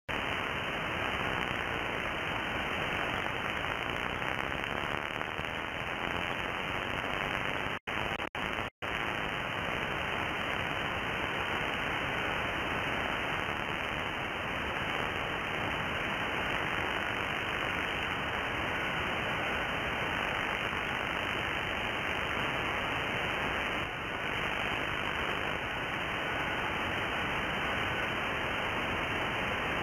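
Steady hiss of a 2 m (144 MHz) single-sideband receiver tuned to an empty band, with a weak FT4 digital signal reflected off an aircraft buried in it. About eight seconds in, the audio drops out three times, each for a moment.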